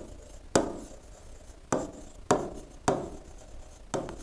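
Pen tapping and scraping on the glass screen of an interactive whiteboard while a word is written: five sharp taps at uneven intervals, each trailing off in a short scratch.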